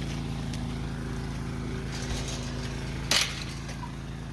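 An engine running steadily at idle, with a short, loud, noisy burst about three seconds in.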